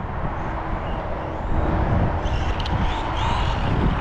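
A 1/10 Arrma Gorgon RC monster truck with a brushed Mega 550 motor running on a 3S battery, driving on grass. The motor whine rises and falls in pitch as it speeds up and slows, over a steady low rumble.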